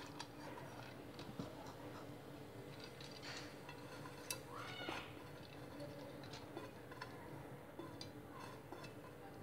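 Faint small clicks and taps of a hand mixing raw toor dal and chopped vegetables in an aluminium pressure cooker, over a steady low hum. A brief faint rising-and-falling tone comes about halfway.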